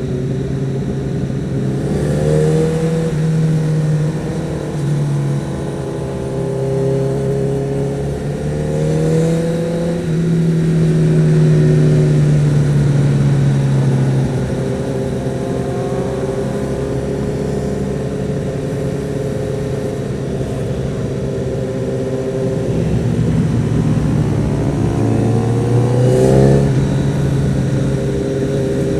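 Honda CBR1000RR Fireblade's inline-four engine heard from the rider's seat, cruising at town speed. The note rises under throttle and drops back about three times: around two seconds in, around nine seconds in, and again near the end.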